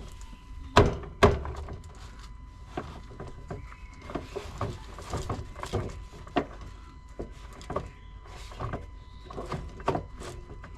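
Plastic car trim being worked loose by hand: two loud thunks about a second in, then scattered smaller clicks and knocks.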